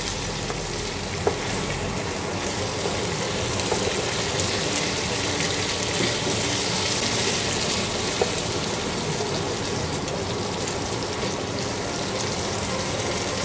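Chicken pieces and tomato masala sizzling steadily in a frying pan as they are stirred with a wooden spatula.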